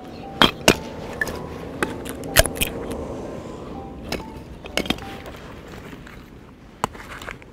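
A handful of sharp wooden knocks and clatters as split pieces of hardwood firewood are pulled apart and set down with the hatchet between hatchet splits, the loudest knocks about half a second in.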